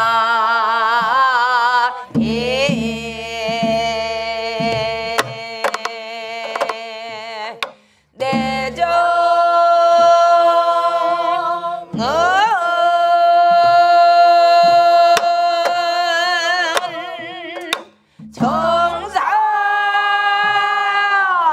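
A group of voices sings a Namdo folk song in unison, led by a woman, in long held notes with a wavering pitch. They break off briefly about eight and eighteen seconds in. Buk barrel drums are struck along with the singing.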